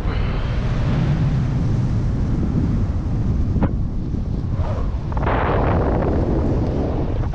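Wind from the airflow of a paraglider in flight buffeting the camera microphone, a steady low rumble. There is a sharp click about three and a half seconds in and a louder, hissier gust a second or so later.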